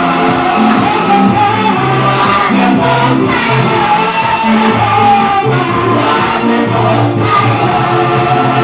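Gospel worship music: a congregation singing together over a band with a steady bass line.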